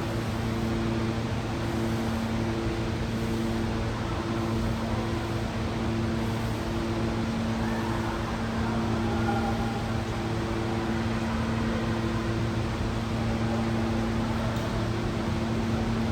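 A steady machine hum with several held low tones over a noisy drone; the higher tones briefly drop out and return a few times.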